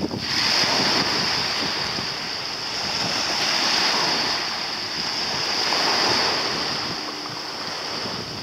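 Wind blowing across the microphone over the wash of sea waves, the noise swelling and easing a few times, with a steady high hiss throughout.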